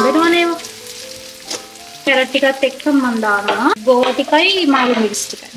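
Chopped vegetables sizzling in hot oil as they are stir-fried in a steel wok, with a metal spatula scraping and tossing them. Music with held notes runs under it, and a singing voice over it is the loudest sound from about two seconds in.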